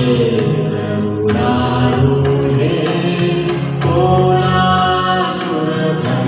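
A song playing: sung vocals with long held, bending notes over steady instrumental backing, in a chant-like style.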